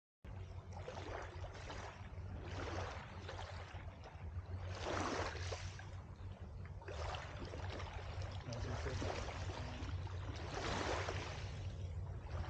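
Small waves washing onto the shore, swelling and falling back about every two seconds, over a steady low rumble.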